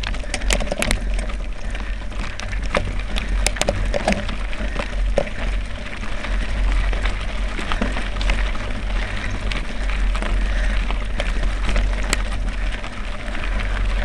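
Mountain bike rolling downhill over a loose stone and gravel track: a steady rumble of wind on the microphone, with rattling and sharp clicks from tyres on stones and the jolting bike, thickest in the first few seconds.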